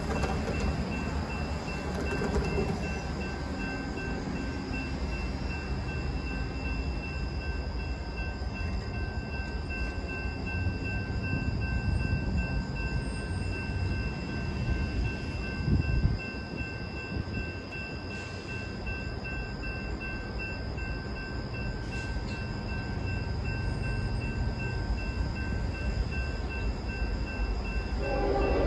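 Low, continuous rumble of a train out of view, with a brief louder thump about halfway and the sound growing louder near the end.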